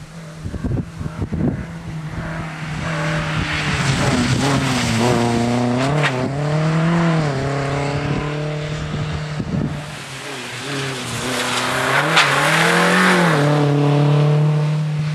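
MG ZR 160 rally car's 1.8-litre K-series VVC four-cylinder engine revving hard on a stage run, its note climbing and dropping with throttle and gear changes in two loud surges, with tyre noise on wet tarmac. Wind buffets the microphone at the start.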